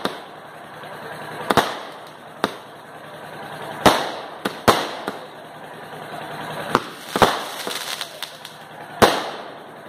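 Aerial fireworks shells bursting in the sky: about seven sharp bangs at irregular intervals, with crackling between them.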